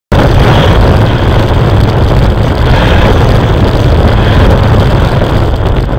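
Race car engine running hard, heard from inside the car: loud, steady engine noise heavy in the low rumble.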